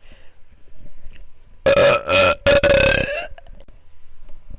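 A man's long, loud belch, lasting about a second and a half with a brief catch partway through, holding a steady pitch; it starts nearly two seconds in.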